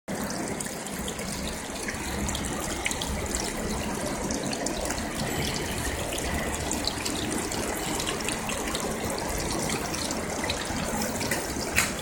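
Tiered stone water fountain splashing steadily as water falls from its bowls into the basin. A single sharp click comes near the end.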